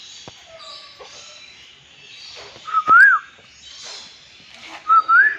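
A bird whistling a loud call twice, about two seconds apart: a short note that glides up in pitch, the first time dropping away again. Fainter calls of other birds go on throughout.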